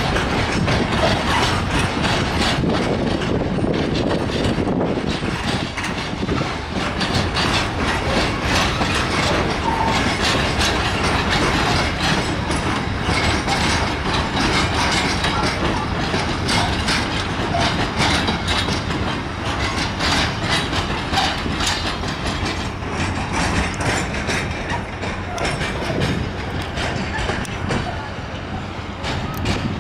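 Freight train's covered hopper wagons rolling past, their wheels clattering over the rail joints and points in a steady run of clacks. The noise eases slightly near the end.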